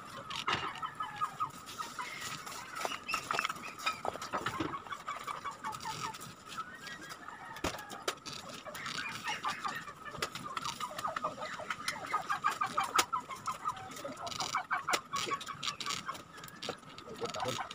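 Chickens clucking: a steady run of short, repeated calls, with occasional sharp clicks mixed in.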